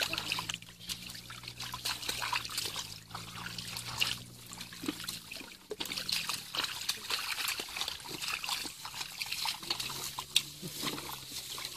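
Bare feet squelching and sucking through soft wet mud, with small splashes and trickles of muddy water, irregular and continuous.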